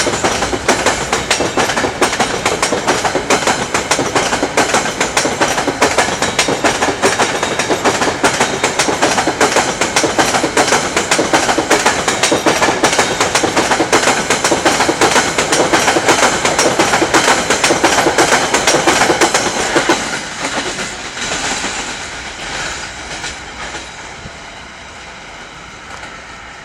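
Freight train of empty coal wagons rolling past, with a dense clatter of wheels over the rail joints. About twenty seconds in, the sound starts to fade steadily as the train moves away.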